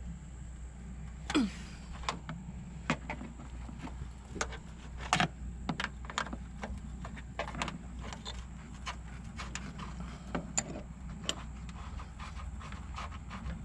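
Hand wrench and nuts clicking and clinking against metal in irregular single knocks as the strut's top mount nuts are worked loose by hand, one near the start ringing briefly with a falling pitch.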